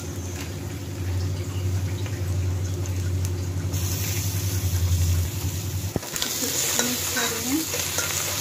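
Raw mutton pieces sizzling as they fry in hot mustard oil with browned onions in a pressure cooker. The sizzle grows louder about four seconds in, and a metal spoon clicks against the pot near the end. A steady low hum underneath stops about five seconds in.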